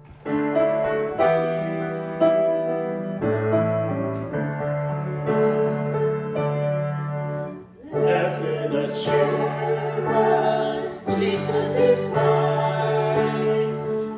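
Grand piano playing an introduction of chords struck about once a second, then, about eight seconds in, a small group of voices joins in singing with the piano.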